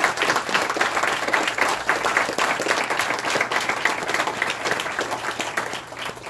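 A room of people applauding: many hands clapping in a dense patter that gradually dies away toward the end.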